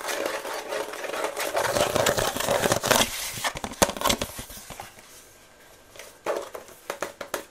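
White plastic paint-mixing palette handled close to the microphone: a dense run of rubbing, scraping and clicking for about the first four seconds, then a few separate taps near the end.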